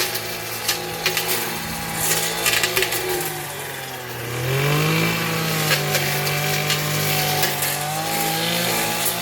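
A small engine running steadily, rising in pitch about halfway through and holding at the higher speed, with scattered sharp knocks.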